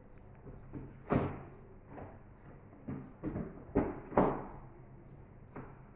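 Several irregular knocks and thumps of objects being handled and set down, the loudest about a second in, most likely the recipe books being moved and stacked.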